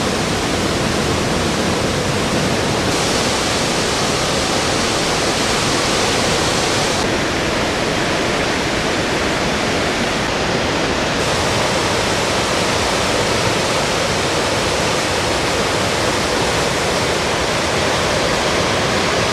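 Waterfall and whitewater rushing, a steady dense hiss of falling and churning water. Its high end shifts brighter and duller a few times.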